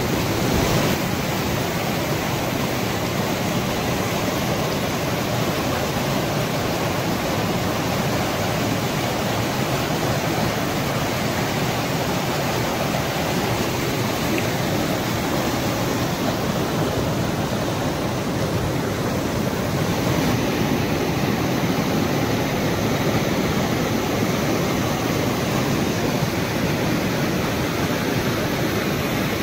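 A rain-swollen, muddy stream rushing and churning in white water over pitted rocks: a steady, unbroken rush.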